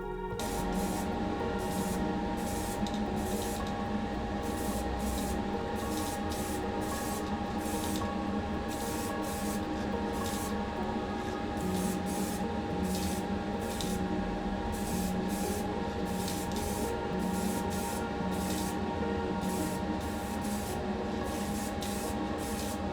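Paint being sprayed onto small diecast toy wheels in many short hissing bursts, about one or two a second.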